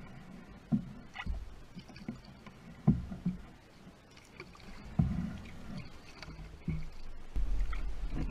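Wood-canvas canoe being paddled: irregular hollow knocks against the hull over light water noise. A steady low rumble comes in near the end.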